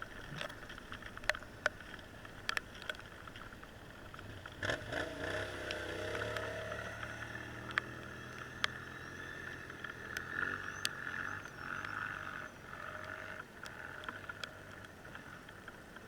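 A small vehicle engine running faintly, its pitch wavering briefly about five seconds in, with scattered light clicks throughout.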